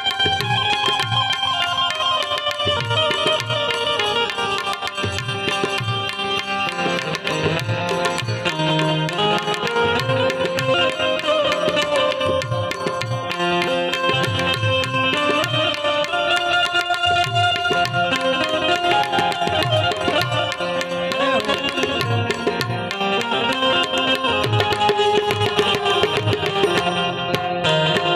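Instrumental passage of a Gujarati song with no singing: a hand drum keeps a steady, regular rhythm while a sustained melody line plays over it, gliding in pitch here and there.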